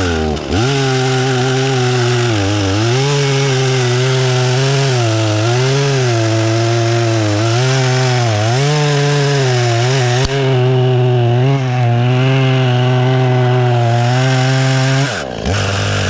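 Husqvarna 120 Mark III two-stroke chainsaw at full throttle cutting through a tree trunk, the engine pitch sagging repeatedly as the chain bites under load and picking up again. Near the end it drops off as the throttle is released.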